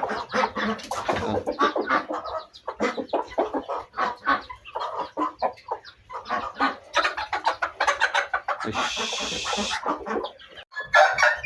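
Bangkok chickens clucking in many short, repeated calls, with a brief hiss about nine seconds in.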